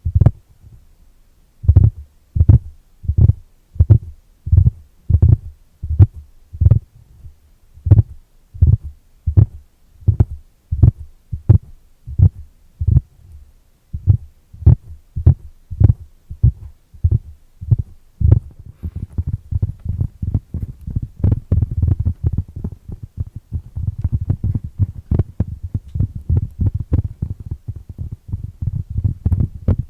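Cork board being tapped: dull, low taps, spaced about one every 0.7 seconds, then a little past halfway they turn into a fast, continuous flurry of lighter taps.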